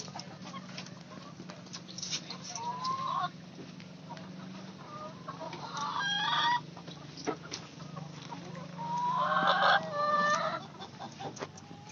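Rhode Island Red native chickens clucking and calling, a few short calls, then a louder, longer run of calls near the end, over a steady low hum.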